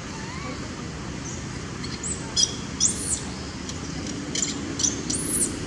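A string of short, high-pitched chirping animal calls, each rising and falling, coming in small groups from about two seconds in, over a steady low background hum.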